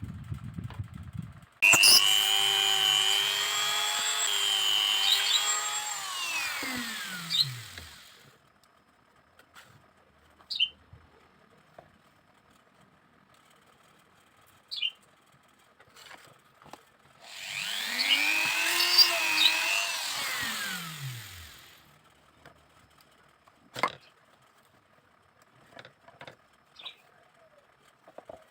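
Small handheld electric power tool working bamboo, run twice for a few seconds each time; each run ends with the motor's pitch falling as it winds down. A few light clicks and taps come between the runs.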